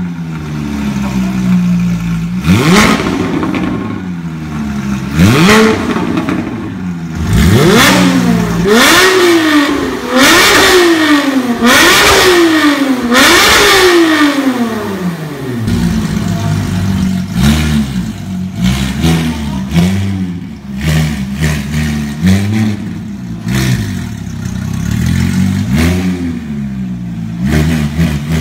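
Porsche 997 GT3's flat-six engine free-revving with the car standing still, through a Fi Exhaust catless pipe and valved cat-back muffler with dual tips. The revs snap up and fall back again and again, several in quick succession in the middle. About halfway through it drops to idle, with small blips.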